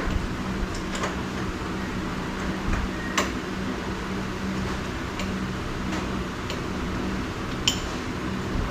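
A few sharp, scattered metallic clicks of tools working in a locked doorknob, over a steady low hum.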